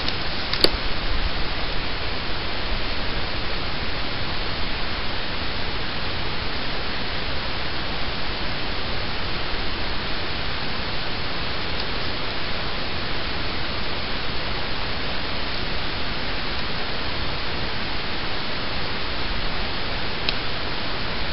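Steady, even hiss with no distinct events, and one faint click about half a second in.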